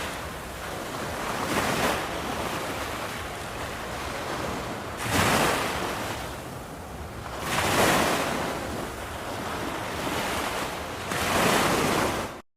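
Ocean waves breaking on a beach: a steady rush of surf with four louder surges of breaking waves a few seconds apart. The sound cuts off abruptly near the end.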